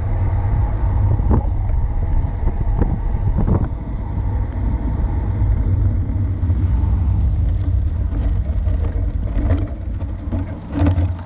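Wind buffeting a bike-mounted camera's microphone during a fast road-bike descent, with tyre and road noise and a few knocks from bumps. It eases off near the end as the bike slows.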